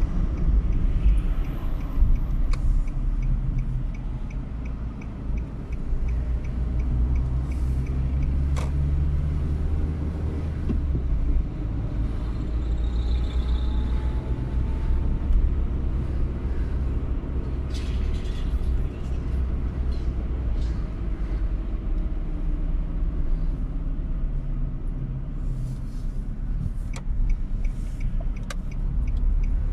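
Road noise inside a moving car: a steady low rumble of engine and tyres, with a faint rapid ticking near the start and again near the end.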